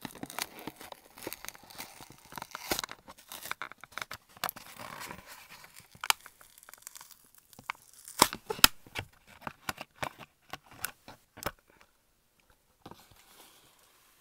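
Close-miked tearing and crinkling as a die-cast toy car's blister pack is opened by hand, the cardboard card and clear plastic bubble being pulled apart. Dense crackling at first, then a run of sharp snaps and clicks, thinning to faint handling near the end.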